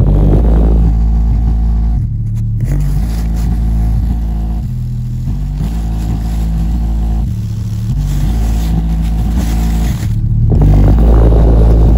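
A 5.25-inch Aiwa woofer in a small cardboard box playing loud, deep bass notes that step from one pitch to another every second or two, the box vibrating with it. The bass is louder and rougher during the first two seconds and again near the end.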